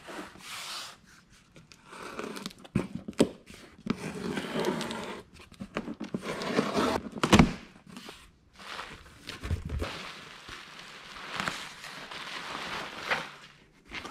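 Cardboard shipping box being opened by hand: tape tearing, cardboard flaps scraping and rustling, with irregular knocks of the box, the loudest about seven seconds in.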